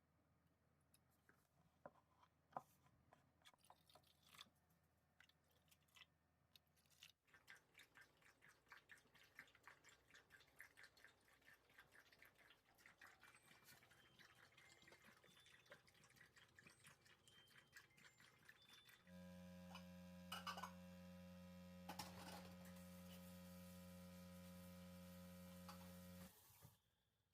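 Faint, quiet kitchen-type sounds: scattered light clicks, then about seven seconds in a dense, fast crackle of small ticks, and from about nineteen seconds a steady low electric hum with a few clicks over it that cuts off suddenly near the end.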